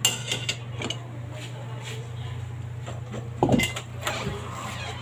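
Metal spatula clicking against an aluminium pan lid as the lid is lifted off, with a few lighter clinks in the first second and a louder clatter about three and a half seconds in, over a steady low hum.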